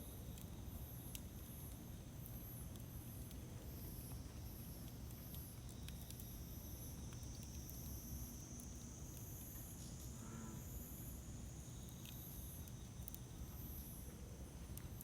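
Campfire burning quietly: a soft low rumble with scattered small crackles and pops.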